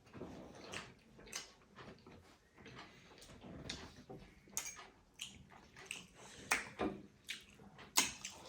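Eating sounds: chewing, with scattered sharp clicks and clatters, the loudest a little before the end.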